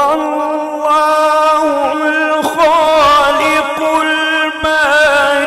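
A man's voice in melodic Quran recitation (tilawat), holding one long drawn-out note, with rapid wavering ornaments partway through.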